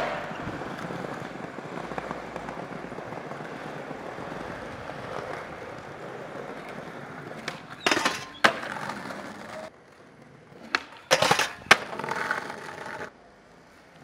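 Skateboard wheels rolling steadily over smooth stone ground. About eight seconds in come two sharp clacks as the board is popped and lands, and there is another cluster of board clacks and landing impacts around eleven seconds.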